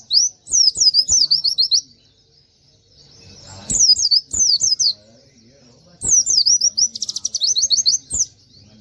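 A pleci (white-eye) singing rapid-fire 'tembakan' phrases of quick, sharply sweeping high whistles, three bursts with short pauses between. The third burst breaks into a very fast trill near its middle.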